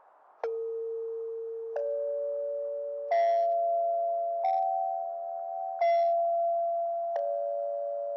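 Emergency alert alarm tune of electronic chime-like tones: six notes struck about every 1.3 seconds, each ringing on under the next. The pitch climbs over the first four notes and steps back down over the last two.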